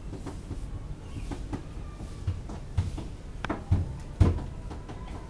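Several short, dull knocks and thumps at irregular intervals, the loudest about four seconds in.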